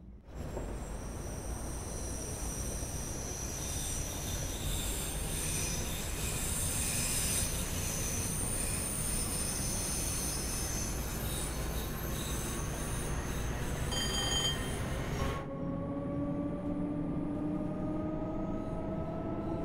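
Class 314 electric multiple unit running, its wheels squealing in high-pitched tones over the rumble of the train. From about halfway through, a whine rises steadily in pitch as it picks up speed, and the rumble drops off suddenly near the end.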